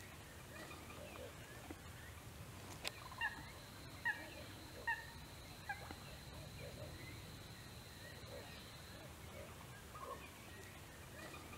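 Great crested grebe calling: a short series of about five sharp, falling calls, each under a second apart, a few seconds in.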